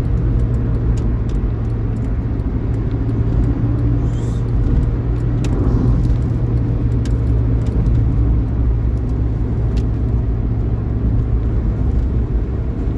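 Intercity bus running at highway speed: a steady engine drone with road noise.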